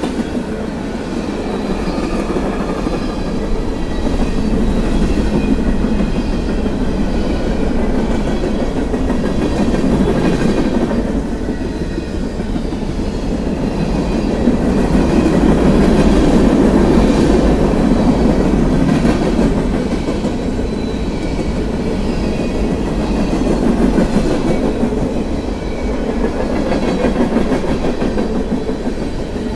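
Freight cars of a mixed manifest train (tank cars, covered hoppers and boxcars) rolling past at close range: a steady rumble of steel wheels on the rails, swelling and easing as the cars go by.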